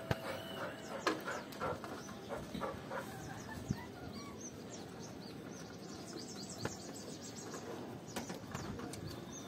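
Small birds chirping, a run of high quick chirps in the middle, over scattered light clicks and taps from Labrador puppies eating at steel bowls.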